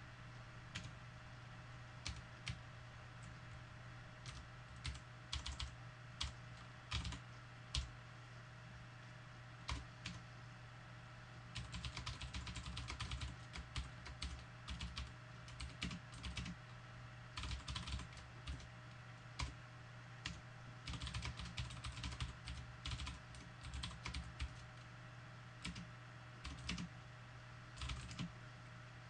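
Typing on a computer keyboard: key clicks in irregular bursts with short pauses, and a quicker sustained run about twelve seconds in, over a steady low hum.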